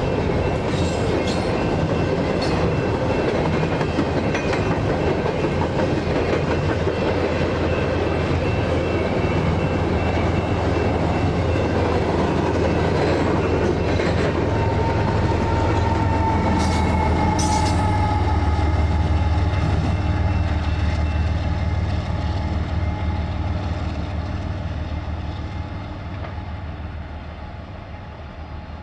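Train rolling past: steady rumble of railcars with wheels clicking over the rail joints and a faint whine in the middle, fading away over the last few seconds.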